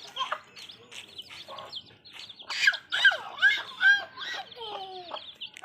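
Baby chicks peeping over and over in short high chirps. About two and a half to four seconds in come several loud, high squeals that rise and fall in pitch.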